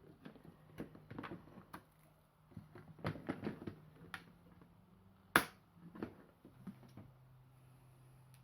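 Small clicks and knocks of a RAM stick being handled and pressed into a motherboard memory slot, with one sharp, louder click a little over five seconds in.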